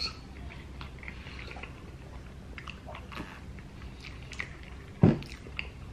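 Chewing of a forkful of shrimp-loaded baked potato, with soft wet mouth sounds and small scattered clicks. One louder thump about five seconds in.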